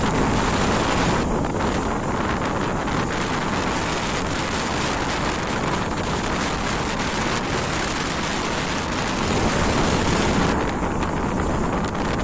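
Gale-driven storm surf breaking and churning against a shore wall, with strong wind buffeting the microphone. The high hiss of the wind eases near the end.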